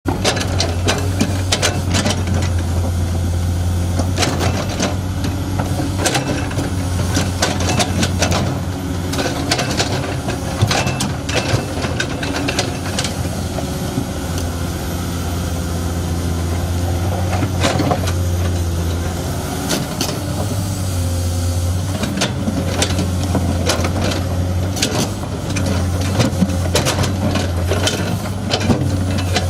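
Hydraulic excavator's diesel engine running steadily under load, with frequent irregular knocks and clatter of rock against the bucket as it digs.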